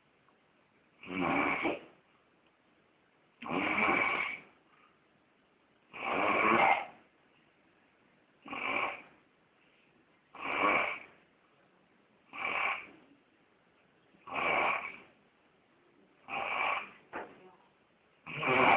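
Snoring: a steady run of snores, about one every two seconds, with quiet between breaths.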